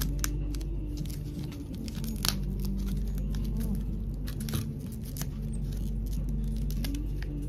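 Small scissors snipping through paper wrapping, with the paper tearing and crinkling in a scatter of short, sharp rustles and clicks.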